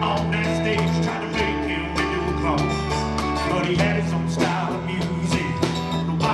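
Live country band playing an instrumental passage between vocal lines: electric guitar lead over bass and drums with a steady beat.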